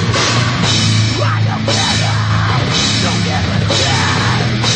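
Loud heavy metal band playing without vocals: distorted guitar and bass over a drum kit, with cymbals crashing again and again.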